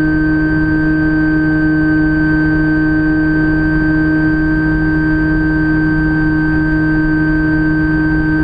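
Electric motor and pusher propeller of a Phantom FX-61 flying wing running at steady throttle in flight: a constant whine with several fixed tones that do not change in pitch, over a rushing low noise.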